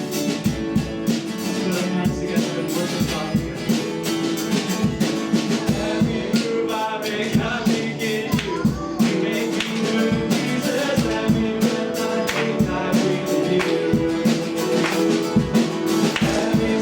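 Live church worship band playing a song intro, with guitar and drums keeping a steady beat.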